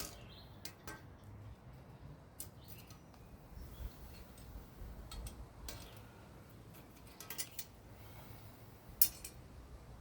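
Hand tool being worked on metal: scattered light clicks and squeaks, with one sharper click about nine seconds in.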